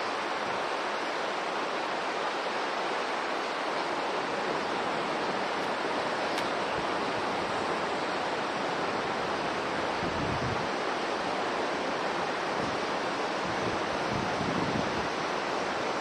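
Steady rushing of flowing water, an even hiss-like roar that holds at one level throughout.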